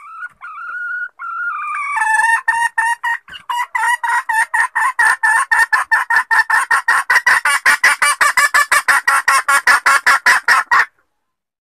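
Female red junglefowl (ayam hutan betina) calling: a couple of drawn-out whining notes, then a long, fast run of clucks, about five a second, that stops abruptly near the end. It is a hen's call used as a lure, which the title presents as a hen asking to mate.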